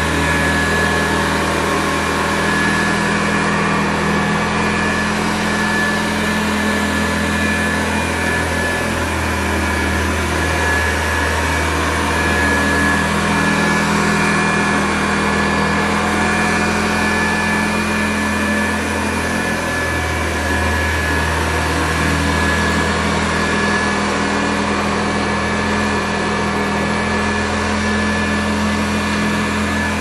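1960 Hoover Convertible Model 31 upright vacuum cleaner running steadily: a motor whine with a fixed high tone over a low hum, and the low hum swells and fades every five seconds or so.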